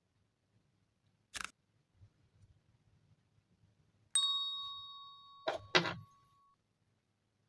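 A small metal object struck once, ringing with a clear tone that fades over about two seconds. There is a brief scrape a few seconds before it and two rattling knocks as the ring dies away.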